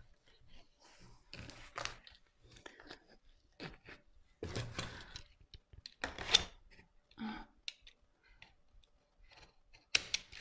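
Self-adhesive vinyl film crinkling and rustling in short, irregular bursts as it is folded and pressed over a stool corner, with a snap-off utility knife slicing through the film.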